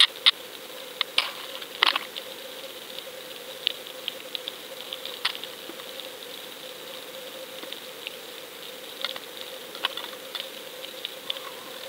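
Underwater audio from a submerged camera: a steady low hum with scattered, irregular sharp clicks and crackles, loudest in the first couple of seconds.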